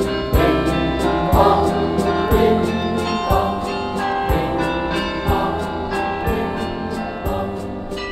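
Band music from a Groningen-dialect folk song with a steady beat, about one stroke a second, under sustained chords.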